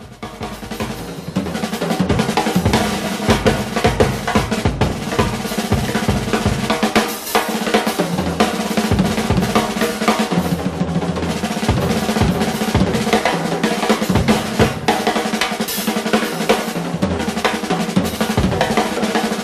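Drum kit played live at speed: dense, rapid strokes with bass drum hits and a few cymbal crashes, coming up to full level over the first couple of seconds.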